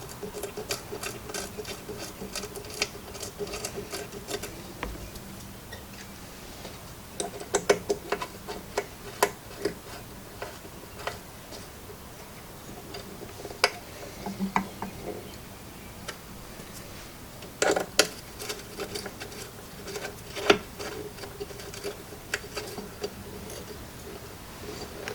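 Irregular metal clicks, ticks and taps from hand work fitting a threaded mounting tab and extension bed onto a benchtop thickness planer. The clicks come in quick runs and scattered clusters, with a louder knock about two-thirds of the way through, over a faint steady hum.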